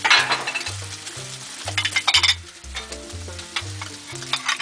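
Food sizzling and frying on a hot Blackstone steel flat-top griddle, with three loud flare-ups of sizzle: just after the start, about two seconds in, and near the end. Background music with a repeating bass line plays underneath.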